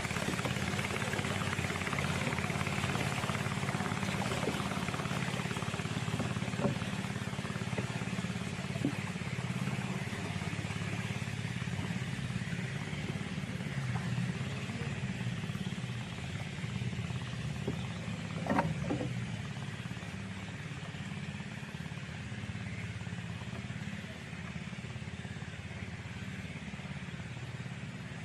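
A motor drones steadily at a low, even pitch, with a few scattered knocks; a pair of louder knocks comes about two-thirds of the way in.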